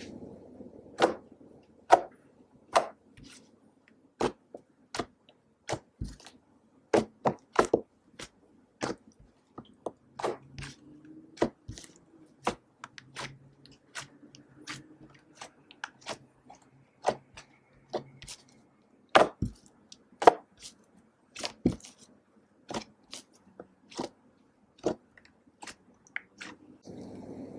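Thick slime being pressed and poked by hand on a hard surface, giving sharp sticky pops and clicks at irregular intervals, about one or two a second.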